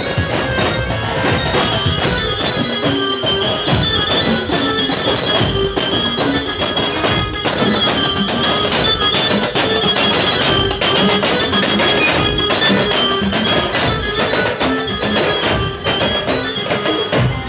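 A live procession band playing loud music, with drums keeping a dense, fast beat under a held melody line.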